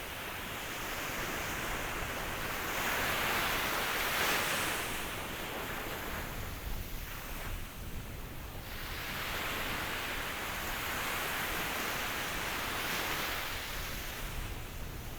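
Ocean surf: waves breaking and washing in, a steady rushing noise that swells twice, loudest a few seconds in and again past the middle.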